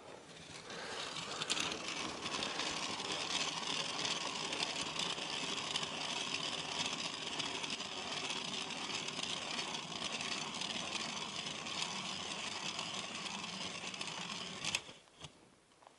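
Ice auger boring a hole through river ice, running steadily for about fourteen seconds and stopping abruptly near the end.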